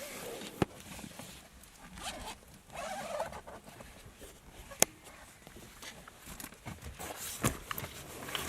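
Rustling and handling noises, zipper-like, with three sharp clicks spread through.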